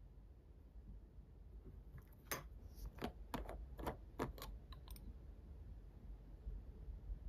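A quick run of about nine sharp plastic clicks over some three seconds, starting about two seconds in: the green plastic screw cap of a square glass bottle of Tamiya Extra Thin Cement being twisted off its threads.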